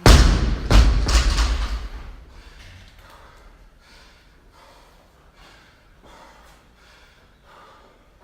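Loaded barbell dropped onto the floor after the last rep: a loud crash at the start and a second bounce just under a second later. It is followed by fast, heavy breathing from the exhausted athlete, about two breaths a second.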